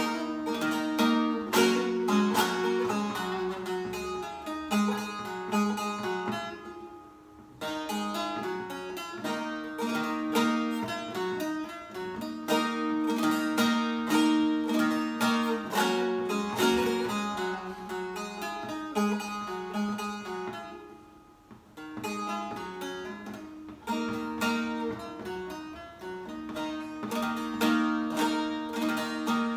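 Solo bağlama (long-necked Turkish saz) playing the instrumental interlude of a Turkish folk song, with quick repeated strokes over sustained notes. It breaks off briefly twice, about a quarter and about two thirds of the way through.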